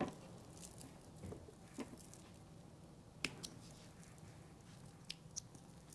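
Faint rustling of cotton fabric being handled as loose thread is cleaned off the sewn piece, with a few small clicks, the sharpest about three seconds in.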